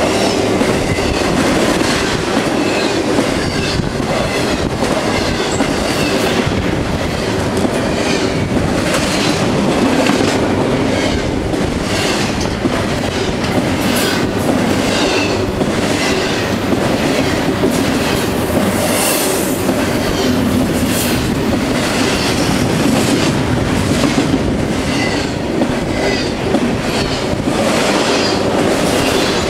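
CSX intermodal freight train's container cars rolling past at close range: a steady loud rumble with repeated wheel clicks over the rail joints, and a brief high wheel squeal about two-thirds of the way through.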